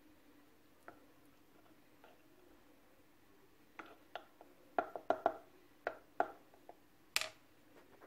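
Kitchen utensils knocking and clicking against cookware: a couple of soft ticks, then from about halfway in a quick run of about a dozen sharp knocks over three seconds, the last the sharpest. A faint steady hum sits underneath.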